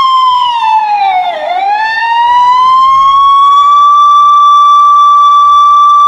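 Police car siren wailing: a loud, high steady tone that sweeps down about a second in, climbs slowly back up, and then holds.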